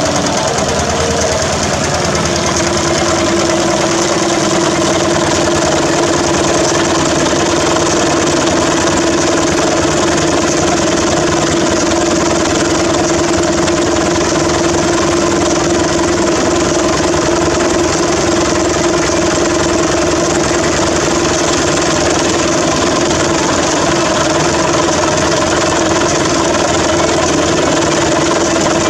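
Engine running steadily, a constant hum held at one pitch over a fast, even ticking.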